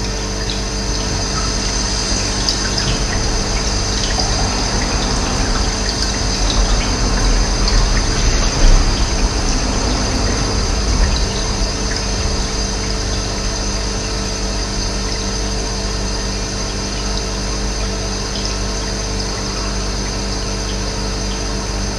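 Running water making a steady rushing noise that swells a little in the middle.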